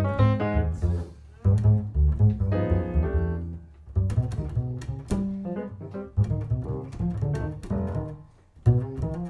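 Double bass played pizzicato in a jazz bass solo, a line of plucked notes in phrases broken by short pauses.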